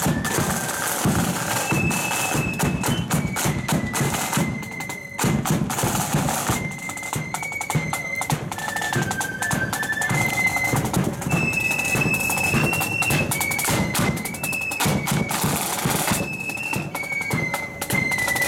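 Marching flute band playing a march on parade: flutes carry a high melody over snare and bass drums, with a short lull about five seconds in.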